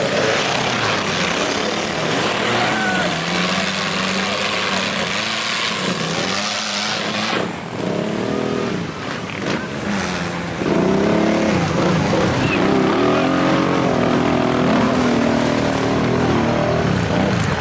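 ATV engines revving unevenly while the quads churn through deep mud, their pitch rising and falling. A loud steady hiss covers the first half and cuts off about seven and a half seconds in. Near the end, a closer engine revs hard and repeatedly.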